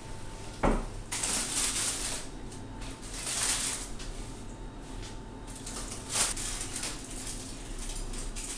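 A single thump about a second in, then aluminium foil crinkling and rustling in several bouts as it is lifted and peeled back off a roast turkey in its tin.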